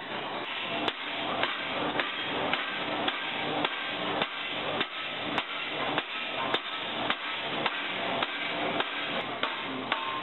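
Hammer blows on the edge of a torch-heated metal propeller blade, in a steady rhythm of about two strikes a second, as the blade is reshaped. A steady hiss runs underneath.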